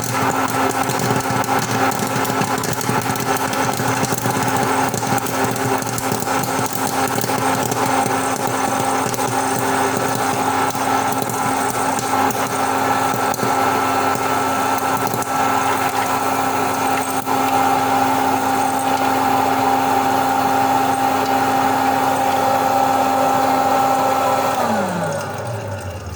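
Electric popcorn machine's motor running steadily with a constant whine, with many small pops from the kernels. About a second before the end it is switched off and the motor's pitch falls as it winds down.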